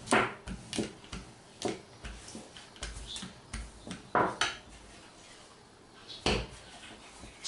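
Small wooden-handled dough roller worked over risen bread dough on a silicone mat to press the air out, with scattered light knocks and clacks as it moves and is put down. The loudest clacks come about four and six seconds in.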